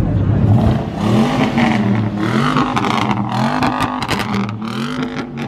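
Car engine revved up and down over and over, its pitch rising and falling several times in quick succession.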